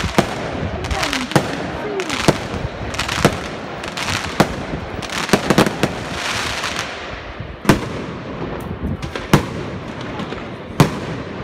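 Aerial firework shells bursting with sharp bangs about once a second, some in quick clusters. A crackling hiss rises about six seconds in as a glittering gold burst fades.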